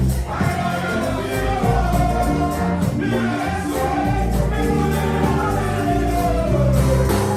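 Gospel worship music: a band with bass and drums and a choir singing a sustained melody.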